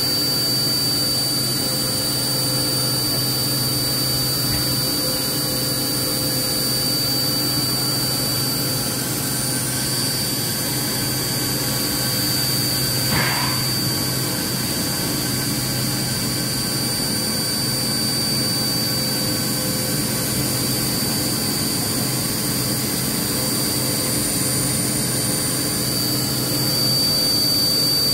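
4-axis CNC milling machine cutting a pattern into a steel roller with a small end mill under flood coolant: a steady high spindle whine over a low motor hum, with a brief squeak about halfway through.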